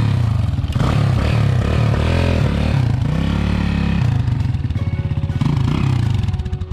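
1997 Honda XR200's single-cylinder four-stroke engine running on a test ride, its revs rising and falling several times. The bike runs but needs a little carburettor work.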